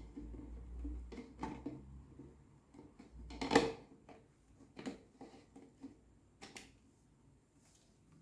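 Plastic kitchen-appliance parts knocking and clicking as the blender's seed-grinder attachment is handled and fitted, with one louder knock about three and a half seconds in. The motor is not running.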